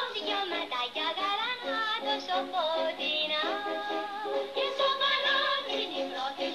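A song: a woman singing in Greek over instrumental accompaniment, her voice sliding between notes and holding a long note about three seconds in.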